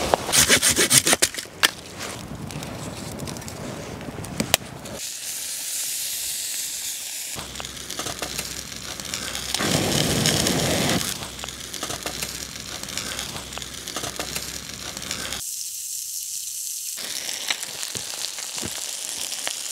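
A Silky Gomboy hand saw cutting through a dead branch in quick strokes, then a wood fire crackling under a cast-iron pan. About ten seconds in comes a long breath blown into the fire's embers.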